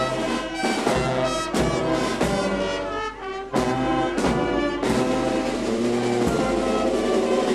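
Wind band playing outdoors: saxophones, trumpets, trombones and tuba together in full chords, with sharp hits cutting through the sustained notes.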